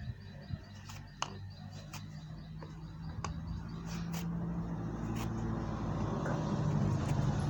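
Facial tissue being cut up into small pieces: a few sharp snips about a second apart, then a rustling that grows louder near the end, over a steady low hum.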